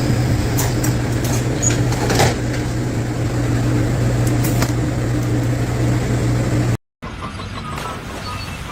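A motor running steadily with a low hum, with a few short knocks over it. It cuts off abruptly near the end, followed by a quieter, different background.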